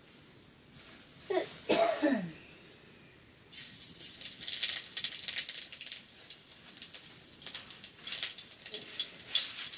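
A short cough-like voice sound falling in pitch. Then about three and a half seconds in, food put into hot oil in a wok over a wood fire starts to sizzle and crackle steadily.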